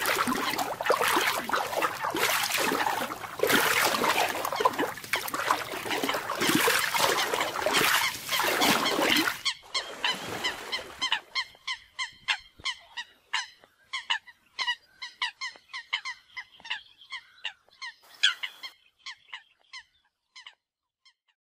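American coots calling in a fight. For about the first nine seconds there is a loud, dense clamour of overlapping honking calls. After that comes a run of short, clipped calls, about three a second, which thin out and fade near the end.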